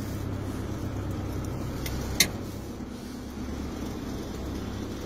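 Street sweeper running, heard from inside its cab: a steady low drone, with a sharp click a little over two seconds in.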